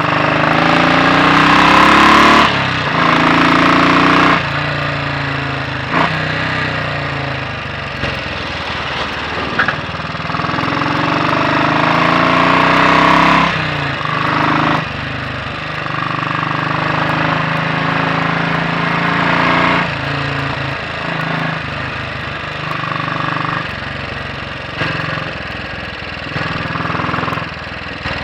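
Royal Enfield Bullet 500 single-cylinder four-stroke engine, its inlet cam retarded by one tooth, pulling hard on the road: the pitch rises under acceleration and drops sharply at each gear change, several times, then it runs more steadily with small rises and falls in speed.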